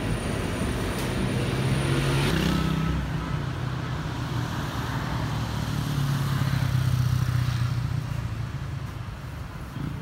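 Street traffic: a motor vehicle's engine running, swelling as it passes about six to eight seconds in, over general city noise.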